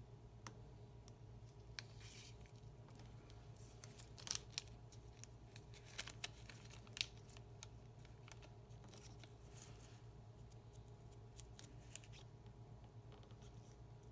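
Faint, scattered small clicks and taps of watchmaker's tools handling tiny parts during watch reassembly, over a steady electrical hum.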